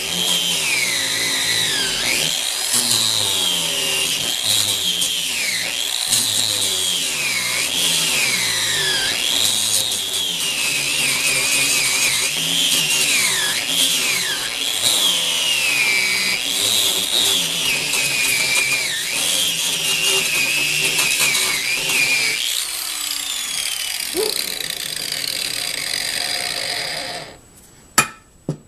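Angle grinder grinding off the rusted T-nuts that hold the cart's wooden bed, its whine dropping in pitch each time it bites under load and climbing back as it frees. It eases off around 22 seconds in and stops a little before the end, followed by a single sharp knock.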